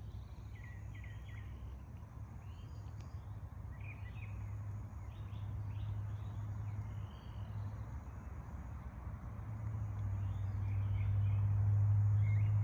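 Small birds chirping in short calls over a steady low hum, which swells louder in the last few seconds.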